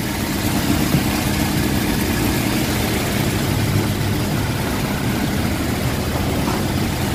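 Toyota Revo engine idling steadily, its front belt drive running quietly with a newly replaced power steering tensioner bearing: the earlier grinding is gone.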